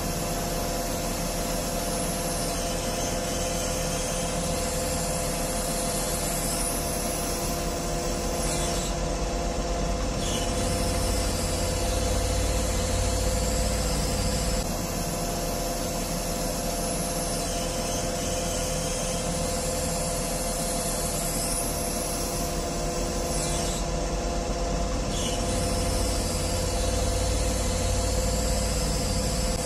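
Truck crane's diesel engine and hydraulic system running steadily, with a low rumble and a steady whine, and faint high squeals gliding up and down in pitch now and then.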